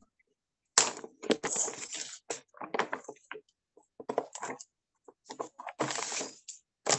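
Irregular rustling and knocking handling noises over a video call, coming in short bursts with silent gaps between them, from a pupil's open microphone.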